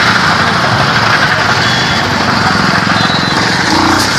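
Small vehicle engine running steadily while riding in traffic, mixed with wind and road noise.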